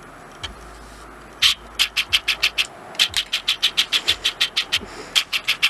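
A young man's breathy, wheezing laughter, a quick run of unvoiced 'heh-heh' pulses at about six a second. It starts about a second and a half in and comes in several runs with short breaks for breath.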